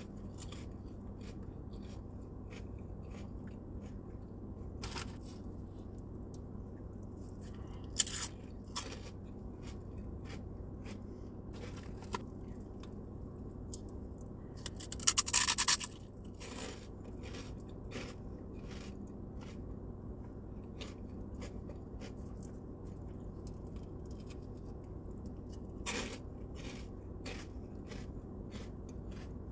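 Close-miked eating of crunchy pork rinds: scattered small crisp clicks and chewing, with a sharp crunch about a quarter of the way in, a dense burst of crunching lasting about a second just past the middle, and another crunch near the end. A steady low hum runs underneath.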